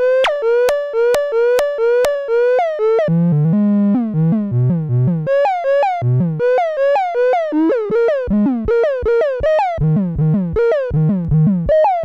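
A DIY analog synthesizer plays a fast repeating sequence of short, bright, buzzy notes, each with a quick pitch swoop at its start. Several sharp clicks sound in the first two seconds. About three seconds in, a lower bass part joins, alternating with the higher line.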